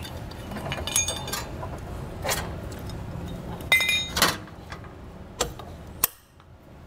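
Steel safety-chain hooks and clips on a tow bar clinking and rattling as they are unhooked from a vehicle's base plate. There are about seven separate clinks, and the loudest pair, about four seconds in, rings briefly.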